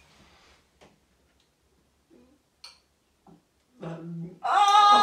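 A few faint clicks of a spoon against a ceramic bowl during a hush. Near the end there is a low hum from a voice, then loud wordless vocalising as a bowl of sandwich spread is tipped onto a man's hair.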